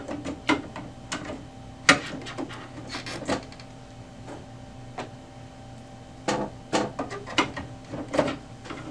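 HP OfficeJet Pro 9018e colour ink cartridges being handled and pushed into the printer's cartridge carriage: a string of sharp plastic clicks and knocks at irregular intervals as they snap into place. A faint steady hum runs underneath.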